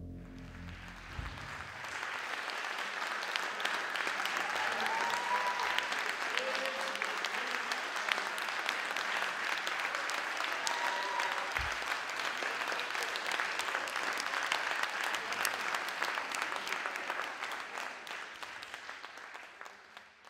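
Concert audience applauding: a dense, steady clatter of many hands that swells over the first couple of seconds and fades out near the end. The band's last low note dies away in the first second or so.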